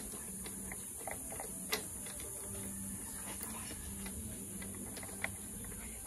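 Faint scattered light clicks of metal bolts and the handlebar clamp bases being handled and started into their threads by hand, with two sharper clicks, one a little under two seconds in and one about five seconds in.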